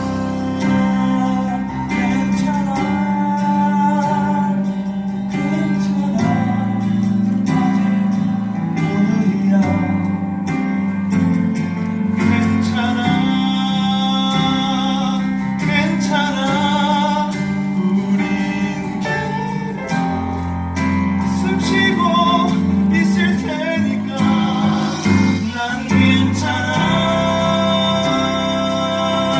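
Musical-theatre number played live: band music with guitar, with singing at times.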